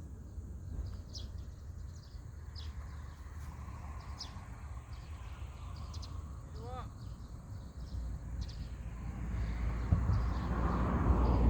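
Outdoor ambience with scattered short bird chirps, including a rising series of chirps about two-thirds of the way in, over a steady low rumble. A broad rushing noise swells up near the end and grows louder.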